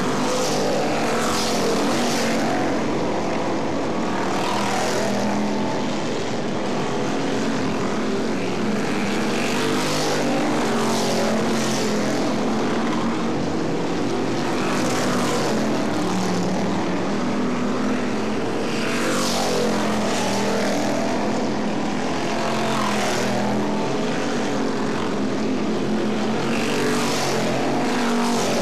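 Several dirt-track stock cars racing around a clay oval, their engines running hard under throttle. The sound swells and falls away again every few seconds as cars pass close by.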